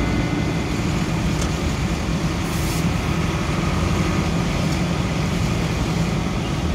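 Steady engine and road noise of a vehicle being driven along a street, an even rumble without sudden events.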